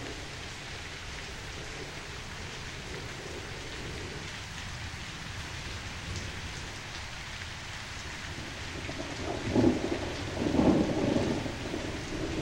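Steady rain, with a rumble of thunder that swells about nine seconds in and dies back near the end.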